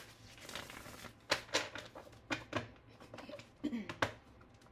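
Tarot cards being handled and shuffled by hand: a few soft, separate taps and slaps of cards against the deck, with a short murmur near the end.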